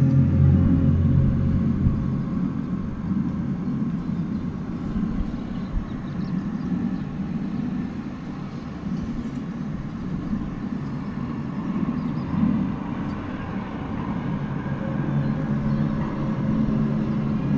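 A low, steady droning rumble from outdoors, with a few held low tones in it that swell slightly and fade: an unexplained 'strange sound' whose source is not known.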